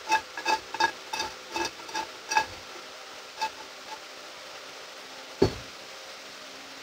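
Metallic clicking and clinking of suspension hardware being worked by hand at a lock nut on the rear cam bolt: a quick run of sharp ringing clicks, about three a second, then a few scattered clicks and one heavier metal knock about five and a half seconds in.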